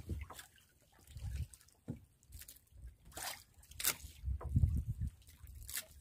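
Water splashing and dripping in irregular bursts, with a few sharp knocks, as a wet hand line is hauled in over the side of a small wooden outrigger boat.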